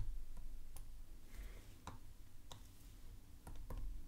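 A stylus tapping and clicking on the writing surface during handwriting: a scattered, irregular series of faint sharp clicks over a low steady hum.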